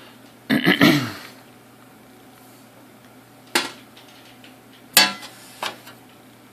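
Metal clanks from sheet-metal computer case parts being handled: a longer rattling scrape about half a second in, then two sharp clanks about a second and a half apart and a lighter knock just after.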